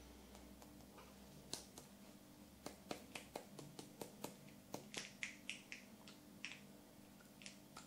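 Faint, irregular plastic clicks and crackles as a plastic wad is worked out of a cut-open plastic shotgun cartridge hull by hand, starting about a second and a half in.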